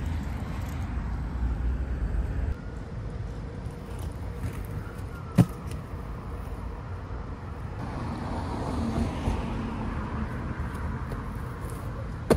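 Inline skate wheels rolling on a concrete sidewalk, a steady low rumble, with a sharp clack about five seconds in and another near the end as a skater lands a jump.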